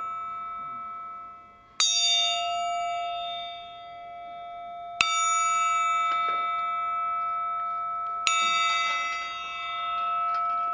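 A bell struck three times, about three seconds apart, each stroke ringing on and fading slowly over the still-ringing note of the stroke before.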